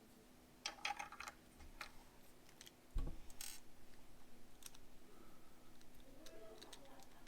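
Faint clicks and taps of small model-kit parts and a small screwdriver being handled as tiny screws are fitted, with a soft thump about three seconds in.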